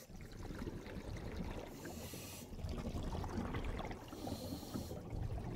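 Quiet water sounds: a steady, grainy trickling texture over a low rumble, with two brief hissing swells about two seconds and about four seconds in.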